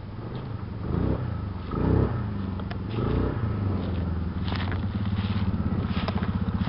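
ATV engine revving up and easing off three times as the four-wheeler rides up a muddy trail, then running slowly with an even pulsing beat as it pulls up close.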